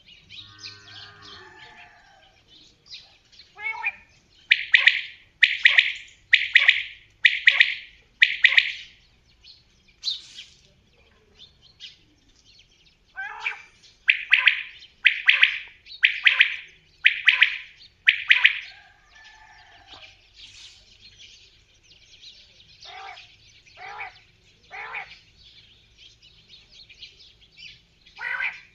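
Common quail calling: bouts of five or six loud, rasping notes, about one a second, with fainter, lower notes between the bouts.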